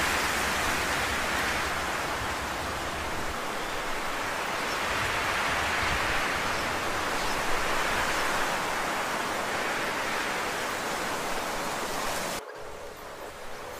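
Steady rushing hiss that drops away suddenly near the end.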